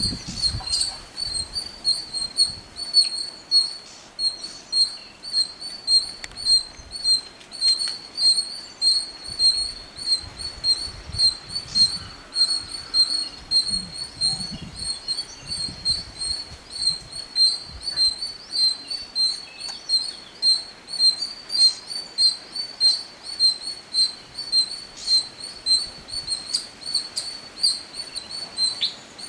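A bird calling a long run of short, high chirps, evenly repeated about two a second.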